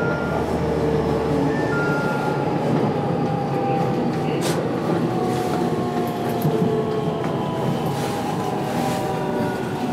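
Electric local train running at speed, heard from inside the front car: a steady rumble of wheels on rail with a motor whine that glides slowly down in pitch. A sharp click comes about four and a half seconds in.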